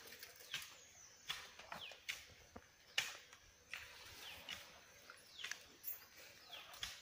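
Birds calling: many short calls sliding downward in pitch, repeated throughout, over faint outdoor background with scattered short clicks and rustles.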